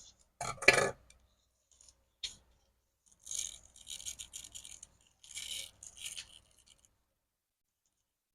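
Slime being handled and squished: a louder squelch about half a second in, a single click, then two stretches of crisp crackling before it stops short of the end.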